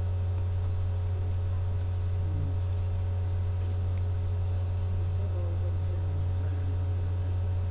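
Steady low electrical hum, with a few faint steady higher tones above it.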